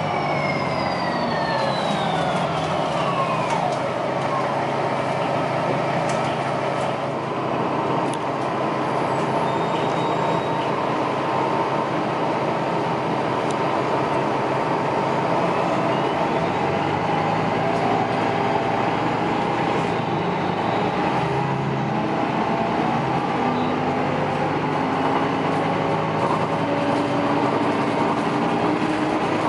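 Articulated city bus heard from inside while under way: engine and drivetrain running over steady road noise. A whine falls in pitch over the first few seconds, and near the end the engine tones rise as the bus picks up speed.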